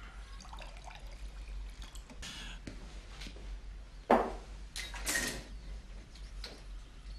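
Quiet shuffling and rustling, then a sharp thump about four seconds in, the loudest sound, followed a second later by a short noisy crash or scrape.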